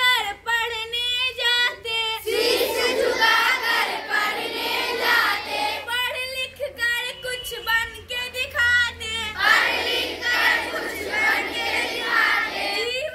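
Schoolchildren reciting a Hindi children's poem in a sing-song chant, call and response: a few girls' voices lead a line, then a large group of children repeats it in unison, twice in turn.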